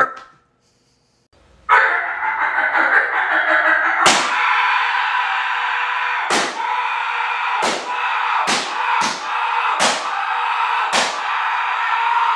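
Loud music starting about two seconds in, with seven sharp, heavy hits at uneven intervals through it.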